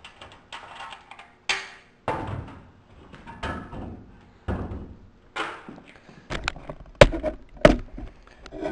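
A triple-pass radiator with its fan shroud is handled and turned over on a workbench, giving a series of scrapes and rattles. Two sharp thunks come about seven seconds in as it knocks against the bench.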